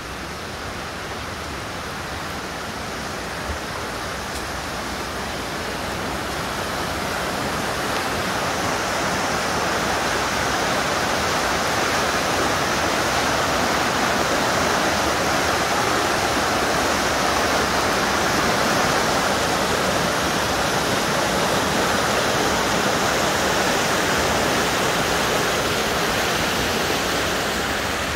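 River rapids rushing steadily as whitewater. The sound grows louder over the first ten seconds or so and eases off near the end.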